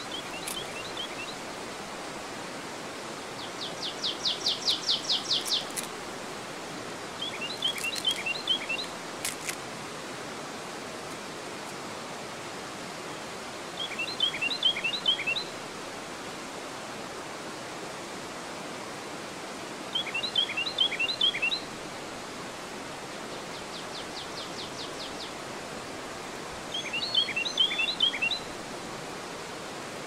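Steady rush of river water pouring over a dam weir. Over it a songbird repeats a short phrase of quick chirps about every six to seven seconds, and a rapid trill sounds twice, loudest about four seconds in.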